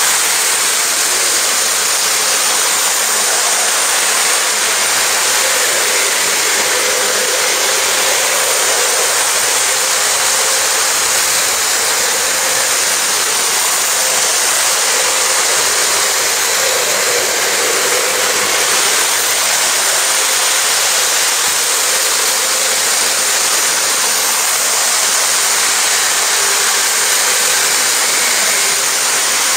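Model trains running on steel track: a steady rushing roll of wheels and motors, with a faint hum that swells a couple of times as trains pass close.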